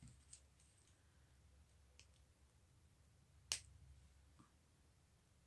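Near silence, with a few faint clicks of beaded wire being handled, then one sharp click about three and a half seconds in: wire cutters snipping the fine beading wire.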